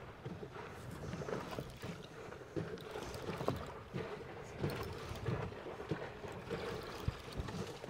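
A small fishing boat at sea: water moving against the hull and wind on the microphone, with scattered light knocks.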